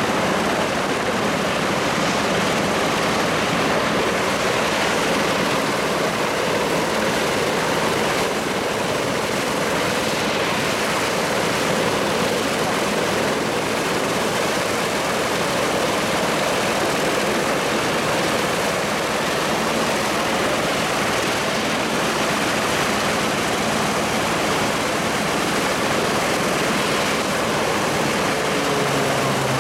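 Lockheed Super Constellation's Wright R-3350 radial piston engines running steadily at ground idle with spinning propellers, a loud, even drone.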